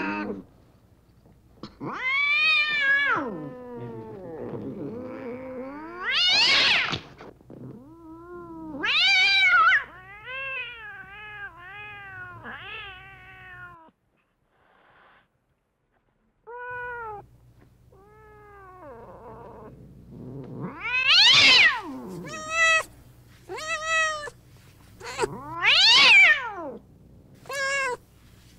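Domestic cats meowing: a string of separate meows of differing pitch and length, some long, high and loud, others short and quicker in succession, with a pause of about three seconds near the middle.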